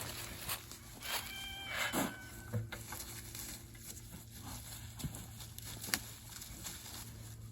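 A farm animal gives one drawn-out, steady-pitched call about a second in, among scattered knocks and rustling from feeding chores.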